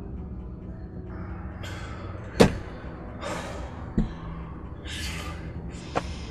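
A man breathing hard in sharp gasps, with three sharp thumps of his hands striking inside the car, the loudest about two and a half seconds in, over a low steady rumble.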